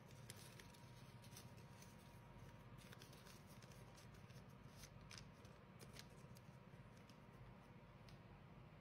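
Very faint rustling and creasing of lined notepaper being folded by hand, with scattered soft crackles as the folds are pressed.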